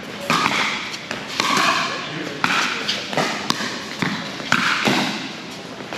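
Pickleball rally: paddles hitting the hard plastic ball, a string of sharp pops about once every half second to a second, over background voices.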